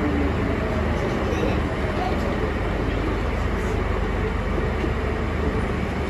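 Steady rumble and rail noise of a London Underground Jubilee line train running, heard from inside the carriage, with a low hum under it.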